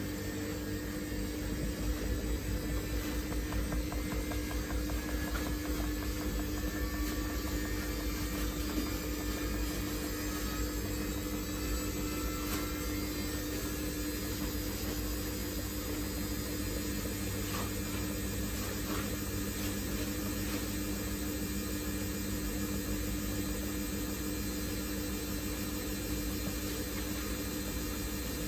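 Samsung WF1700WRW washing machine running with a steady motor hum, a faint whine slowly rising in pitch above it.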